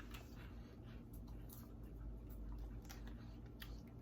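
Faint crunching of small cheese-puff snacks being chewed: scattered soft crisp clicks over a low steady hum.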